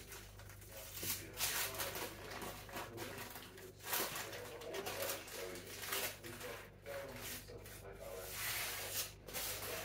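Baking paper rustling and crinkling in repeated short bursts as a ready-rolled pastry sheet is peeled off its paper backing and laid over a pie.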